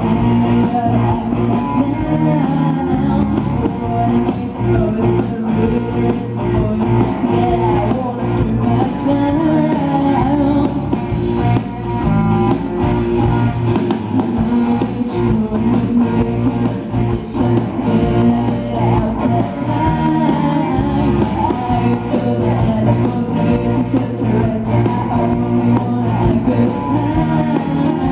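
Rock-style music with a singing voice and guitar, playing steadily.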